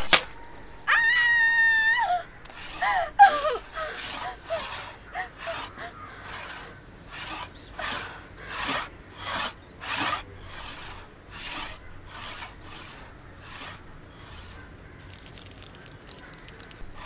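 A sharp clack of a carrom striker hitting a coin, then a high scream of about a second that drops off. After that comes a long run of frightened gasping breaths, about one every three-quarters of a second.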